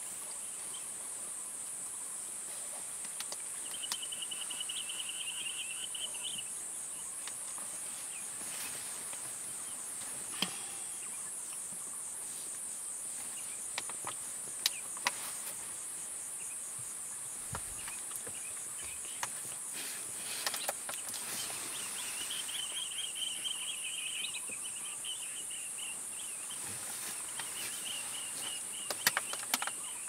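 Steady high-pitched insect chorus with a fine, even pulse. Shorter chirring trills come and go twice, and a few sharp clicks stand out.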